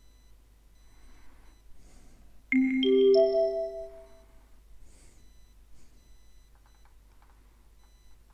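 A three-note rising chime about two and a half seconds in, its notes struck in quick succession and ringing together for about a second: the signal tone of a recorded language-exam listening test, marking the end of one message before the next is announced. Otherwise only faint background noise.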